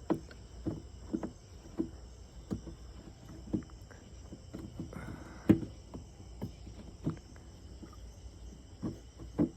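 Insects chirping steadily in the background, with scattered short knocks and clicks, the loudest about five and a half seconds in.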